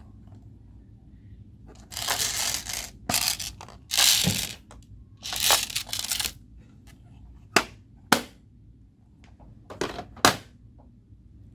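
Homemade slime being worked by hand: a few crackly, squishy bursts of a second or less, then four sharp pops in the second half as it is pressed and pulled.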